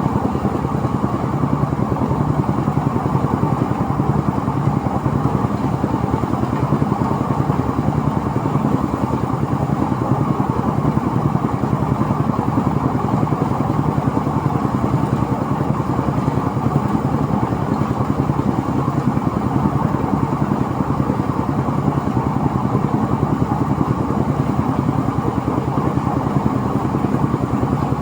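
Engine-driven rice threshing machine running steadily, a loud, even mechanical clatter and drone.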